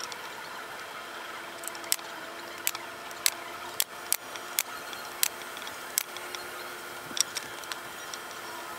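Bostitch pneumatic nailer firing, about a dozen sharp shots at uneven intervals of roughly half a second to a second, driving nails through a pine trim strip into a board.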